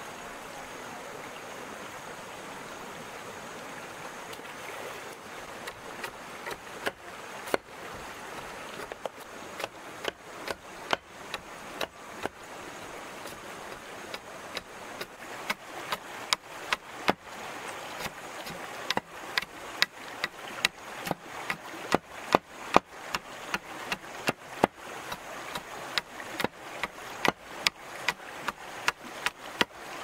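Steady rushing noise like rain or running water, with sharp knocks at an uneven pace of one or two a second that become frequent after the first few seconds.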